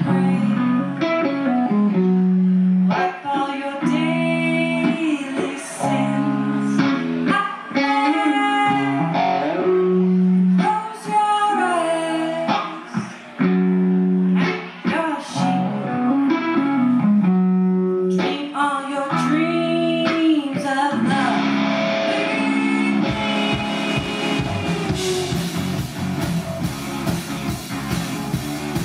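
Live rock band playing: a woman singing over clean electric guitar and bass, with the full drum kit and cymbals coming in about 23 seconds in.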